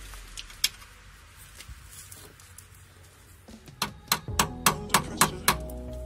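Sharp metal clicks and knocks from tools worked against a rusty front brake caliper: a single click about half a second in, then a run of evenly spaced knocks at about three a second from about four seconds in.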